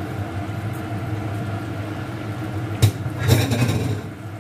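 A steady low mechanical hum runs throughout. Near the end comes one sharp click, then a short burst of a metal spatula scraping and stirring the sugar into the thick masala in a non-stick kadai.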